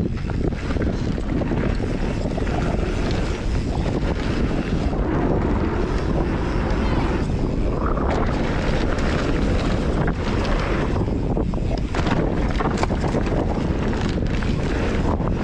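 Wind rushing over the microphone of a handlebar-mounted camera on a mountain bike riding downhill, with tyres rolling on loose dirt and gravel and scattered clicks and rattles from the bike over bumps.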